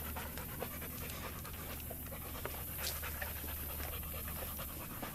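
A dog panting fast and steadily.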